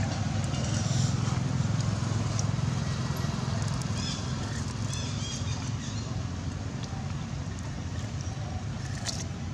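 Steady low outdoor rumble, with a few faint clicks and short high chirps over it.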